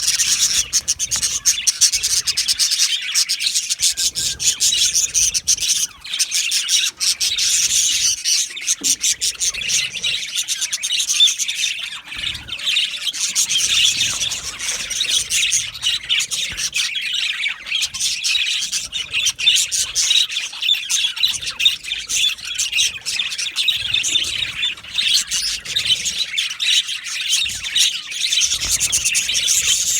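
A flock of budgerigars chattering and chirping continuously, with many overlapping calls and short sharp chirps.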